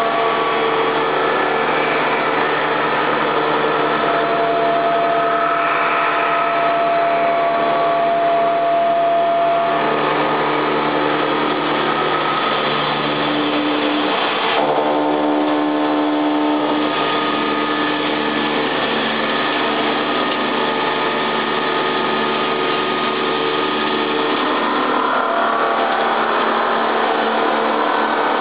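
Heavy machine tools cutting steel: a large face-milling cutter on a portal milling machine working forged steel, then a lathe turning, in a steady mechanical din with several whining tones. The tones change abruptly about ten, fifteen and seventeen seconds in.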